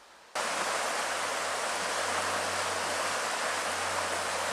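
Fast-flowing river rushing past, a steady water noise that cuts in abruptly just after the start.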